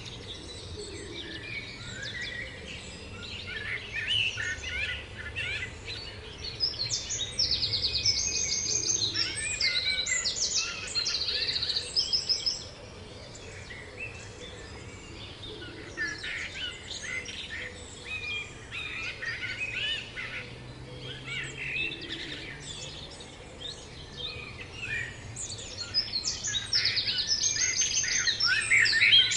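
Songbirds chirping and singing over one another, with rapid trills; the chorus grows busier about a quarter of the way in and again near the end.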